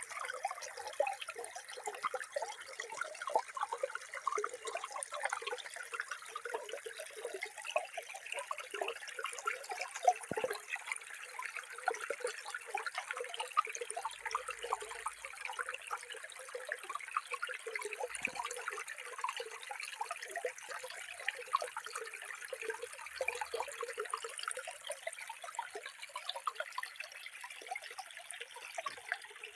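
Running water, steady and continuous, made of many small gurgles, trickles and splashes.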